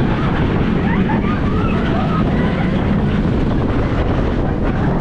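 Intamin wooden roller coaster train running through its wooden structure: a steady rumble of the wheels on the track mixed with wind rushing over the microphone, with riders shouting faintly in the first half.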